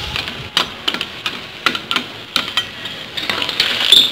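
Clams cooking in sauce in a wok, sizzling steadily, while a spatula stirs them, knocking and scraping against the pan and the shells several times. The clatter is loudest near the end.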